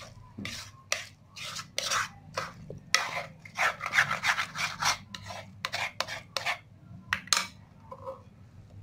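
Spatula scraping cooked instant noodles out of a metal pan in quick strokes, about two or three a second, stopping near the end.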